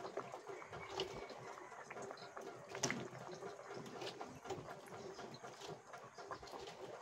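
Faint bubbling and crackling of a pot of simmering fish broth, with soft rustles and clicks as bok choy leaves are pushed into it. One sharper click about three seconds in.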